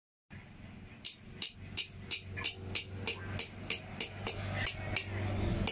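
Blacksmith's hand hammer striking a red-hot steel strip on a small cylindrical anvil, bending the hot bar over its edge: a steady run of sharp ringing blows, about three a second.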